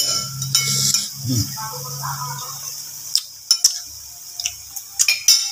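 Spice paste frying with a light sizzle in a wok over a gas burner, with a few sharp clinks of a metal utensil and dishes about three seconds in and again near the end.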